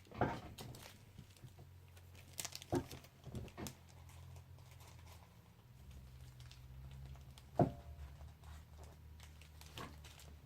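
Craft packaging being handled: scattered light taps and plastic rustles as glitter and confetti packets are picked up and opened, with one sharper click about three-quarters of the way through. A faint steady low hum runs underneath.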